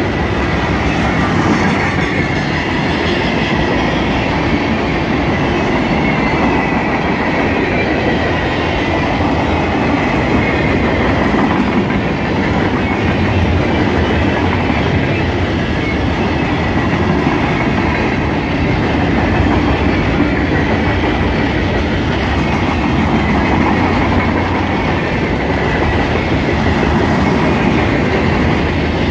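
Mixed freight train cars (tank cars, lumber flatcars, boxcars) rolling past close by: a steady rumble and clickety-clack of steel wheels over rail joints.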